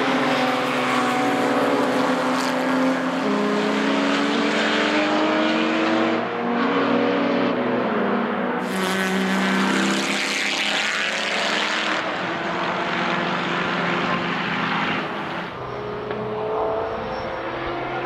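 Several racing cars' engines running hard as the cars climb away uphill, their notes overlapping and rising through the gears. Near the end another racing car can be heard approaching.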